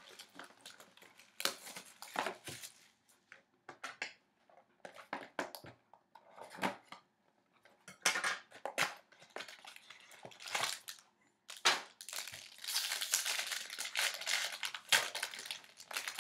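Plastic wrapping and card packaging crinkling and tearing as a sealed box of hockey cards is opened. It goes in scattered crackles and clicks, with a denser run of crinkling near the end.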